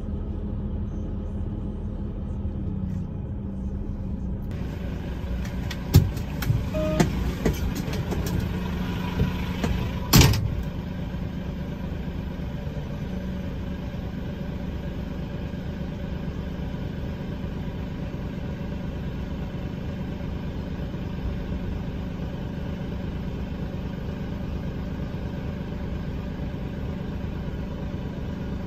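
Diesel engine of a Volvo skip lorry running, then idling once stopped. A cluster of knocks and clunks comes about six to ten seconds in, the loudest near ten seconds.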